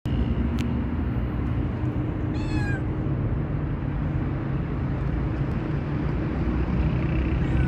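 A street cat gives one short meow about two and a half seconds in, over a steady low mechanical hum.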